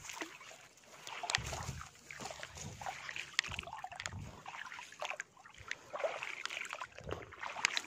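Footsteps wading through shallow floodwater: uneven sloshing and splashing with a few sharp clicks.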